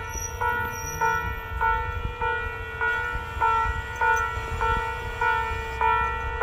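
Electronic level-crossing alarm ringing in a steady ding-ding, a little under two strikes a second, over the low, steady rumble of a JR Shikoku Kiha 54 diesel railcar idling at the platform.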